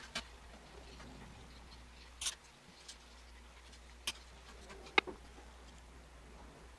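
Scattered small clicks and taps of cables and parts being handled inside a computer case, with one sharper click about five seconds in, over a low steady hum.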